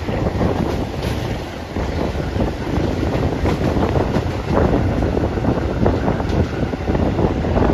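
Running noise of a moving passenger train: a steady low rumble with irregular clattering, and wind buffeting the microphone.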